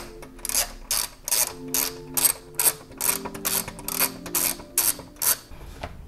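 Ratchet wrench clicking in quick back-and-forth strokes, a little over two a second, as 10 mm bolts are loosened; the clicking stops near the end.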